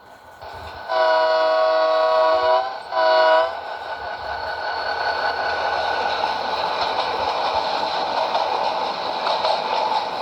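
Nathan K5LA five-chime locomotive air horn sounding a long blast of about a second and a half, then a short one. After it comes the noise of the train, building steadily.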